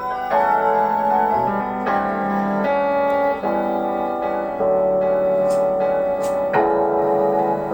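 Electric piano or keyboard playing sustained chords that change about every second, with no drums.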